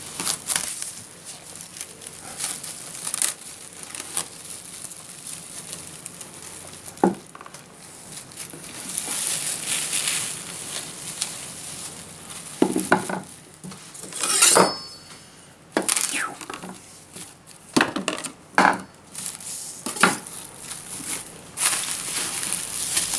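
Plastic cling film crinkling and rustling as it is pulled off its roll and wrapped tightly around a seasoned pork roast on a wooden board. A few sharp knocks and clinks come from the roll and items on the board, the loudest about halfway through with a short ring.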